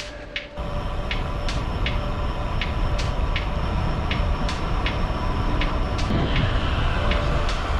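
Wind and road rumble from riding a road bike, heard on a bike-mounted camera, starting abruptly about half a second in and running steadily. Background music with light ticking percussion plays underneath.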